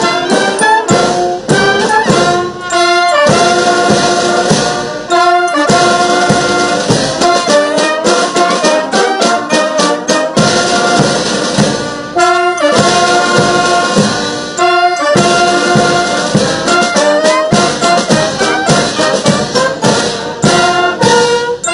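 Military band playing live: clarinets, saxophones and brass over a snare drum.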